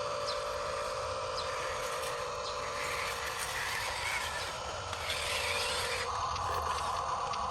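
Small electric motors and gearboxes of Huina radio-controlled construction models whining steadily, the whine changing in pitch about six seconds in.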